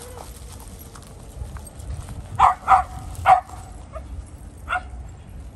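A dog barking: three barks in quick succession about two and a half seconds in, then a quieter fourth bark near the end.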